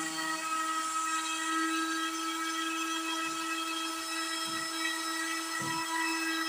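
Handheld trim router, used as the spindle of a home-built CNC machine, running at high speed with a steady high whine as its bit carves MDF.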